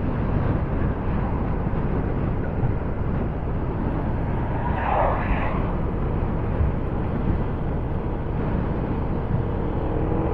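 Wind rushing over the microphone, mixed with the steady running and road noise of a Honda PCX 160 scooter cruising at moderate speed. A short louder swell cuts through about five seconds in.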